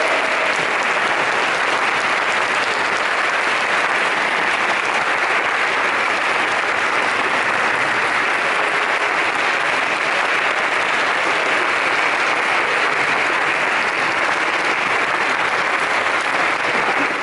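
Audience applause, a dense, steady clapping.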